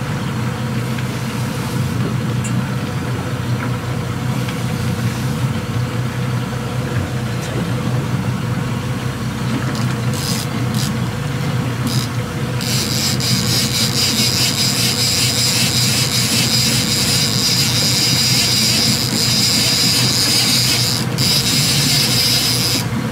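Boat engine running steadily under way. From about halfway through, a big game-fishing reel adds a steady high whirr with a fast pulsing texture as it is worked on a hooked Spanish mackerel.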